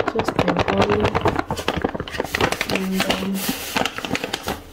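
Paper flour packet crinkling and rustling in quick crackles as flour is shaken out of it into a stainless steel mixing bowl.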